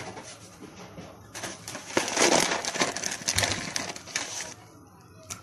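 Dry rustling and crackling with many small clicks, loudest from about one and a half to four and a half seconds in: hands handling sugar cubes in their box before adding them to the dry yeast.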